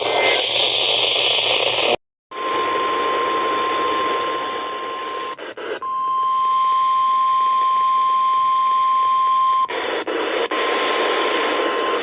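NOAA Weather Radio broadcast heard through heavy static hiss. After a short dropout about two seconds in, the 1050 Hz warning alarm tone sounds steadily for about seven seconds, briefly broken partway through; it is the signal that a warning, here a flash flood warning, is about to be read.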